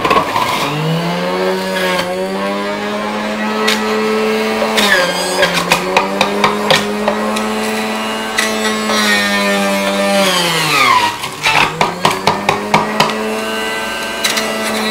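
Electric centrifugal juicer's motor switched on, spinning up to a steady hum. Its pitch sags as muskmelon pieces are pushed down onto the spinning grater blade, dropping deeply about ten seconds in before recovering, followed by a run of sharp clicks from the pieces against the blade.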